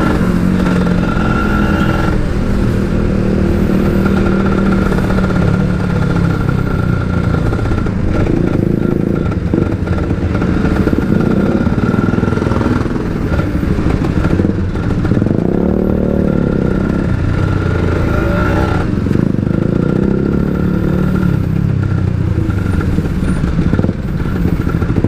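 Two-stroke Kawasaki Ninja 150 engine running through an aftermarket exhaust while riding, its pitch rising and falling as the throttle is opened and closed, most clearly around the middle.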